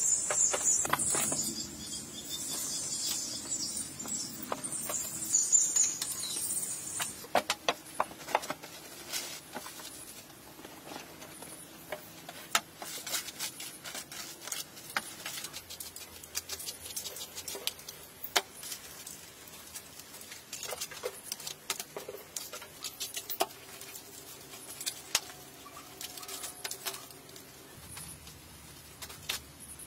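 Wood fire crackling, with a loud hiss for the first several seconds. Then scattered sharp clicks and crinkling aluminium foil as a foil-wrapped piece of meat is opened.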